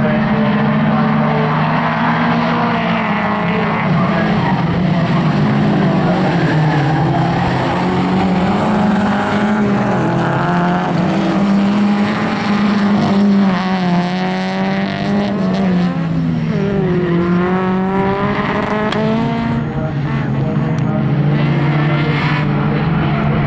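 Jokkis folk-race cars' engines running hard at high revs as they race past, a constant engine drone with several engines' revs rising and falling through gear changes and corners, one sweeping up and down sharply about two-thirds of the way through.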